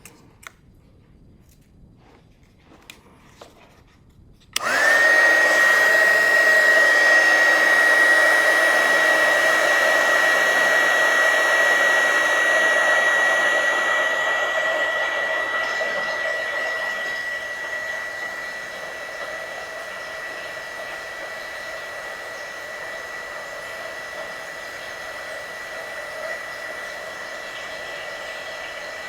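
A few light clicks, then a small electric blower motor switches on about four and a half seconds in. It runs steadily with a rush of air and a single high whine, and grows quieter about halfway through.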